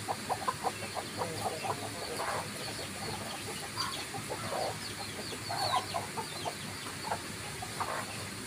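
Chickens clucking as they forage: a quick run of short clucks at first, then scattered clucks, with a few brief high peeps near the middle.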